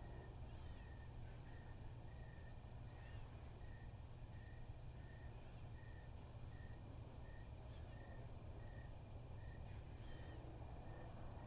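Quiet background with a steady low hum, a faint short chirp repeating evenly about every two-thirds of a second, and a few fainter higher chirps now and then.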